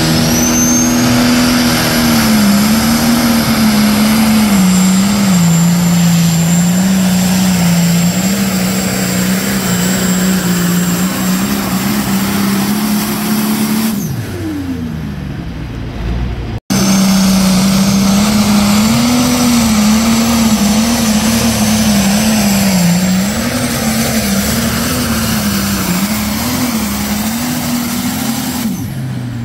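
Diesel pulling tractor's engine running at full throttle as it drags a weight-transfer sled, its pitch wavering up and down with the load, with a faint high whistle above it. About halfway through the revs fall away as the throttle comes off. After a short break the engine is back at full throttle with the pitch wavering again.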